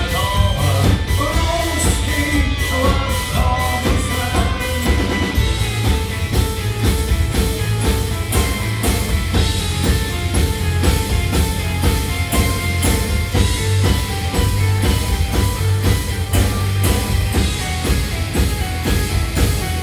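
Live rock band playing a song: drum kit keeping a steady beat under bass, electric guitar and keyboard, with a metallophone struck with mallets. A male voice sings over it during the first several seconds.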